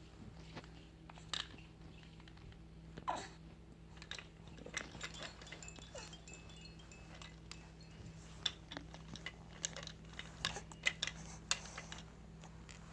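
A young baby's mouth noises: a run of short wet clicks and smacks with a few brief squeaks, getting busier in the second half.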